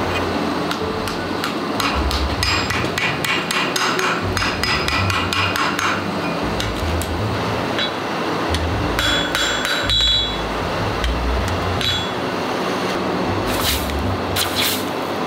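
A blacksmith's hand hammer striking red-hot steel on an anvil in quick, ringing blows as a hoe blade and its neck are forged, with a second run of blows about nine seconds in. Near the end, a hiss as the hot steel is quenched in water.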